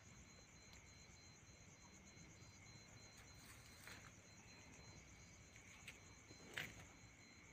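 Faint, steady high-pitched trilling of night insects under quiet background hiss, with a short sharp click about six and a half seconds in.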